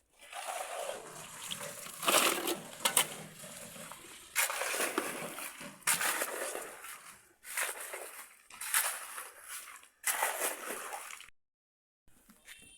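Wet concrete or mortar being turned with shovels: about six separate scraping, sloshing strokes, each a second or two long, cut off abruptly near the end.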